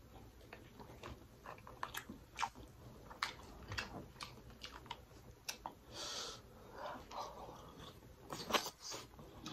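Close-miked eating sounds: chewing and wet lip smacks on a mouthful of seafood-boil food, with sharp clicks throughout and the loudest cluster of smacks near the end.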